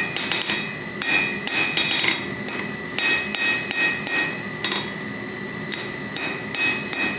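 Hand hammer striking hot steel on an anvil in a steady run of blows, about two to three a second, each with a bright ringing note from the anvil, with a short pause about five seconds in. The blows are drawing the end of a forged bottle opener down to a taper.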